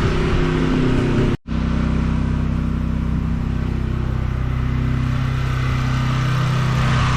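Pressure washer engine running steadily under the hiss of the water jet, cutting out for an instant about a second and a half in.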